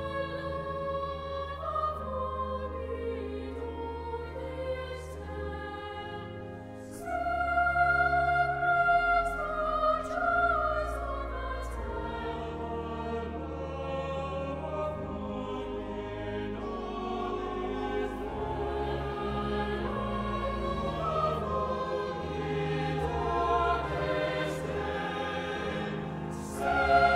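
Sacred choral music: a choir singing slow held lines over organ accompaniment, swelling louder about seven seconds in.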